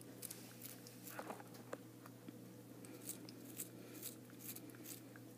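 A long-haired cat biting and chewing a slice of caramel apple: faint, irregular clicks of its mouth and teeth, over a steady low hum.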